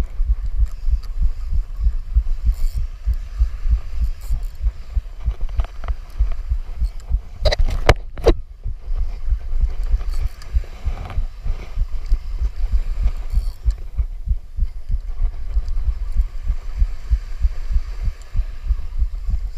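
Wind buffeting the microphone in a loud, uneven low rumble, with a few sharp clicks about seven to eight seconds in.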